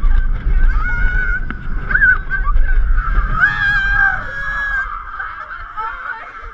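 Roller coaster train rumbling along the steel track with wind on the microphone, slowing and quietening from about four seconds in as it runs onto the final straight, while riders let out high, wavering whoops and shrieks.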